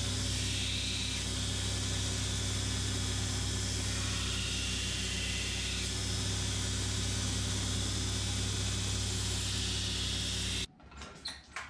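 Knife-making belt grinder running steadily, a low motor hum under loud belt hiss, as a steel knife blank is rough-ground against the belt before hardening, throwing sparks. The sound cuts off abruptly near the end.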